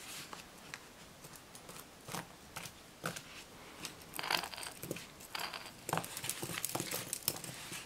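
Wooden lace bobbins clicking against one another as pairs are crossed and twisted, with light rustles of thread. The clicks are scattered and become busier after about four seconds.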